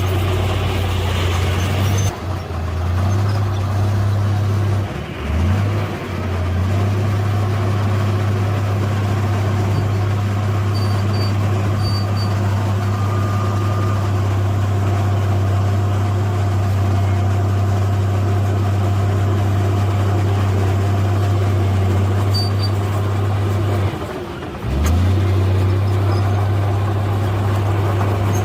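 Heavy diesel engine of earthmoving machinery running steadily with a deep, even hum. Its speed dips briefly and climbs back a few times: about two seconds in, around five seconds, and near the end.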